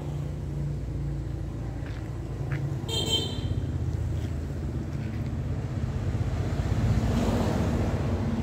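A motor vehicle's engine running steadily, with a short horn toot about three seconds in.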